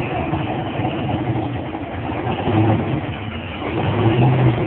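Drag race car's engine running at the start line, a deep rumble that swells with throttle blips about two and a half seconds in and again near the end.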